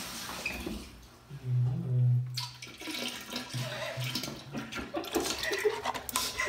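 Chocolate milk poured from a paper carton into toilet bowl water, a splashing, rushing pour with crackly handling of the carton. About a second and a half in, a loud low steady hum lasts about a second, with a shorter one near four seconds.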